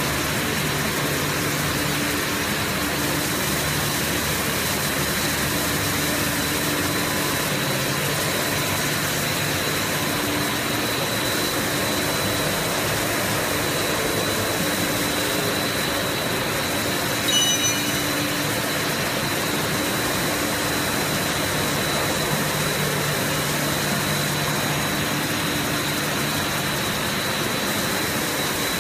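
Steady din of a plastic pelletizing production line running: electric motors and gear reducers with a constant high whine over a low hum. A brief high-pitched squeak a little past halfway.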